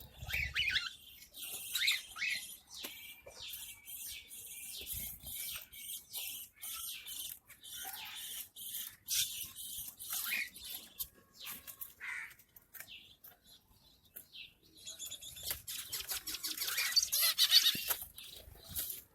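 Small cage birds in an aviary, finches among them, chirping and calling in quick short notes, with a busier, louder stretch of calls near the end.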